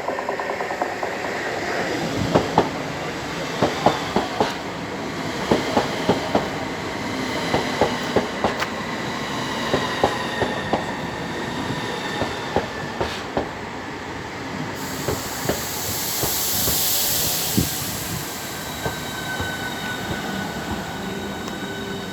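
Electric passenger train rolling along the platform road, its wheels clicking over rail joints and points and squealing, the clicks spreading out as it slows. There is a burst of air hiss around fifteen seconds in.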